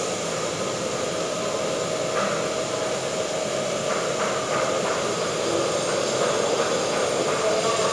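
A steady, even rush of machine-like background noise with a faint held hum, and a few faint taps about two to four and a half seconds in.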